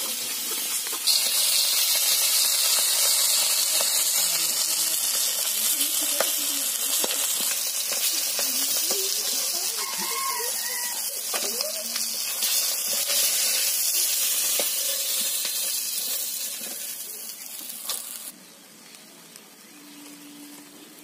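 Fish steaks frying in hot oil in a kadai (wok), a steady hiss of sizzling as the pieces are lifted out. The sizzle cuts off sharply about 18 seconds in.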